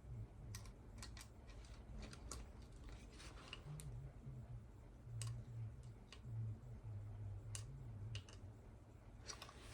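Faint handling noise: scattered light clicks and taps, a few per second at most, over a low steady hum.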